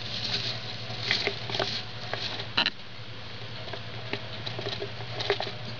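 Pet mice scurrying through wood-shaving bedding and scrabbling on a cardboard box, a scatter of short scratches and rustles, with one sharper scratch about two and a half seconds in.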